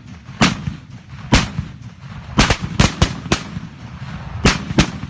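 Firecrackers exploding: about nine sharp, loud bangs at uneven intervals, several bunched together in the middle, with a low rumble between them.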